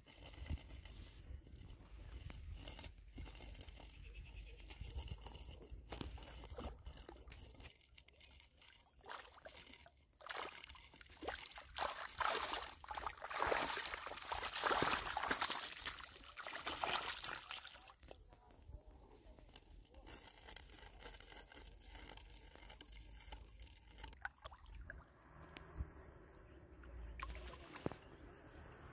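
A hooked fish thrashing in shallow muddy water, splashing against the trap line; the splashing is loudest about halfway through and then dies down to a ripple.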